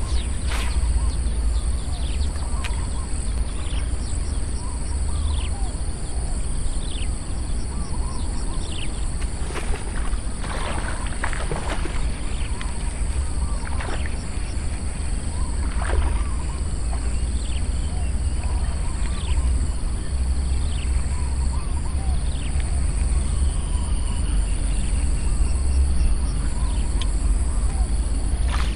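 Outdoor ambience: wind rumbling on the microphone under a steady high insect drone, with many short falling chirps scattered throughout and a few brief knocks from handling the rod and reel.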